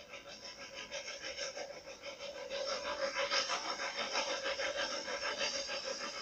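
Snowdon Mountain Railway rack steam locomotive No. 4 working uphill, pushing its carriage, with a quick regular chuff of exhaust beats that grows louder.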